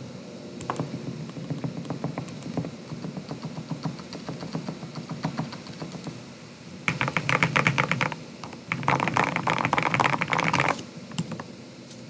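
Mechanical keyboard with overlubed JWICK black linear switches, O-rings and a POM plate being typed on: separate keystrokes at first, then two louder bursts of fast, dense typing in the second half.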